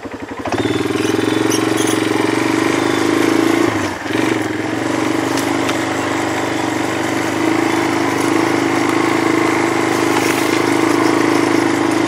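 Small engine of a ride-on vehicle running under way on a dirt trail, picking up just after the start, dipping briefly about four seconds in, then holding a steady pace.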